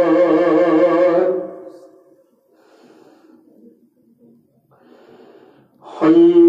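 Singing with held, wavering notes fades out about a second in, leaving a few seconds of faint soft sounds, then comes back in loud and abruptly near the end.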